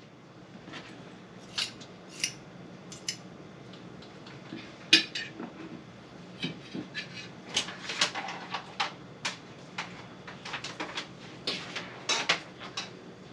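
Metal spoon and pot lids clinking and knocking against steel cooking pots in scattered clatters, the loudest about five seconds in and again near the end.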